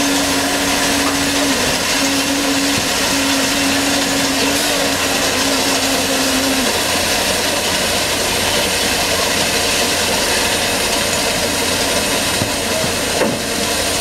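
Concrete deck finisher running steadily as its carriage and finishing roller work across fresh concrete: a continuous mechanical noise with a steady hum that stops about halfway through.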